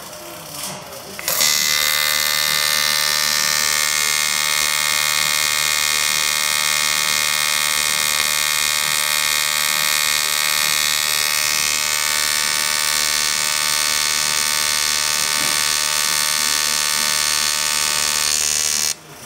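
AC TIG welding arc on thin aluminium, from an EWM Tetrix 230 AC/DC inverter welder: the arc strikes about a second in and runs as a loud, steady buzz, then cuts off just before the end.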